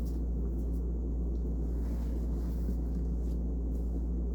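A steady low rumble or hum runs unchanged, with nothing else standing out.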